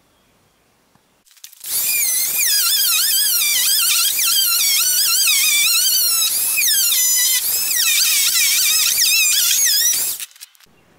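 Oscillating multi-tool cutting through a wooden door-frame rail: a loud, high-pitched buzzing whine whose pitch keeps wavering as the blade loads and unloads in the wood. It starts about two seconds in and stops about a second before the end.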